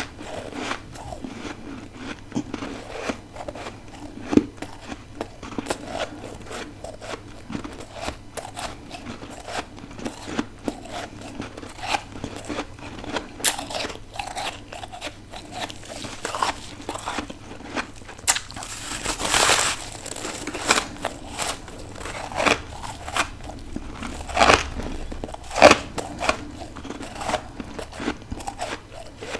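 Close-up biting and chewing of deep-freezer frost and ice: a steady run of crisp crunches and crackles, with a louder, longer crunch a little past halfway and two sharp crunches near the end.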